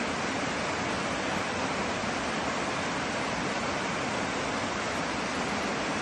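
Mountain stream cascading down a rocky chute in small falls: a steady rush of water.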